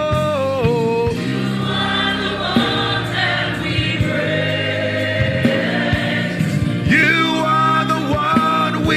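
Gospel worship music: a choir singing long held, sliding notes over steady instrumental backing.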